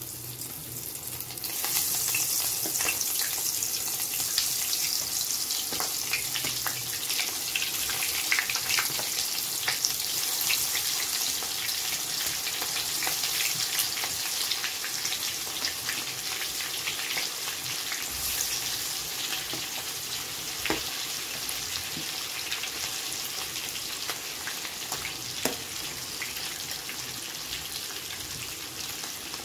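Battered cauliflower florets deep-frying in hot oil: a steady sizzling hiss with many small crackles, which grows louder about a second and a half in and then holds.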